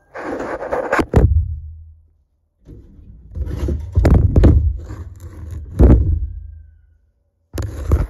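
Handling noise on the recording device's microphone: scraping and rubbing with knocks and a deep rumble, in loud bursts at the start, through the middle and again near the end.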